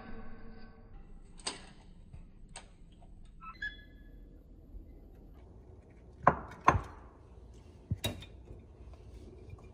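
Scattered knocks and clinks of kitchen utensils being handled during cooking, with a small ringing clink a few seconds in, two louder knocks about six and a half seconds in, and a sharp click near the end.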